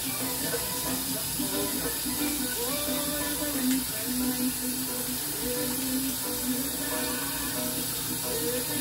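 Music with a sung melody playing over a steady hiss of cooking from the stove, where chicken back is frying in a pan and a lidded pot of water is boiling.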